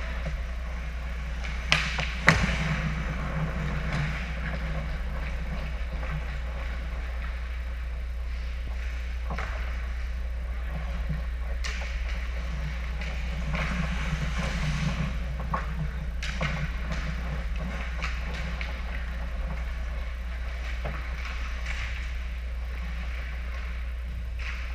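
Ice hockey rink play: skates scraping on the ice and hockey sticks and puck clacking, over a steady low hum. Two sharp cracks of stick or puck about two seconds in are the loudest sounds, with lighter clacks scattered after.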